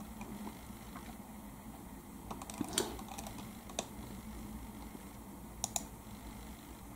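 Faint, scattered clicks and taps from working a laptop while browsing a web page, about eight in all, with a quick pair near the end, over a low steady hum.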